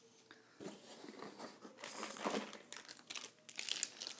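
Crinkling and rustling of plastic soft-bait packets being handled, starting about half a second in, with small clicks and bumps among it.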